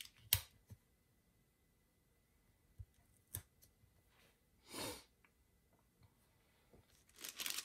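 Faint taps and light paper rustling as washi stickers are pressed down onto a paper planner page, with a soft swish about five seconds in and louder rustling of paper near the end.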